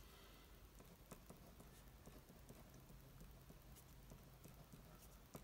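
Near silence, with the faint scratching and small taps of a ballpoint pen writing on paper.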